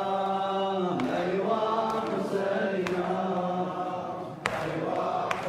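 Men's voices chanting a Shia mourning elegy (latmiyya) for Imam Husayn in long, drawn-out held notes over a steady low drone, with a few sharp knocks.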